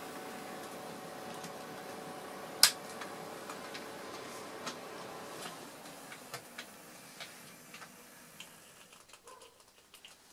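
Hornby J50 OO gauge model tank locomotive running: a steady motor whine, with the wheels clicking over rail joints and pointwork and one sharp click about two and a half seconds in. The whine fades out after about five seconds as the train draws away, leaving scattered clicks.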